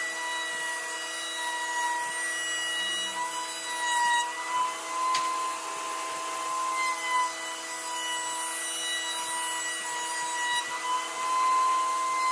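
An electric power tool running steadily on wood, its motor whining at a high, nearly constant pitch that wavers slightly as the load changes.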